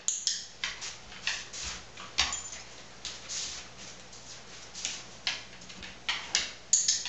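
A dog sniffing at scent containers in a run of short, irregular snuffs, with its claws tapping on a hard vinyl floor as it moves about.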